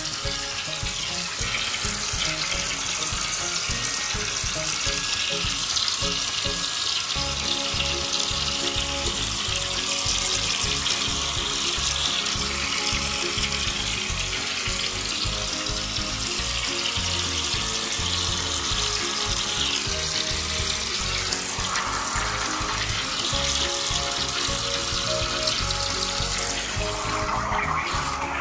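A strong jet of water hissing and splashing steadily down into a floor drain, under background music with a low beat.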